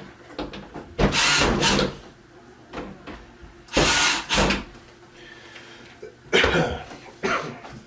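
Three short runs of a cordless drill/driver driving screws, each about a second long, fastening a cabinet door's hinges to the wooden cart, with quieter handling between them.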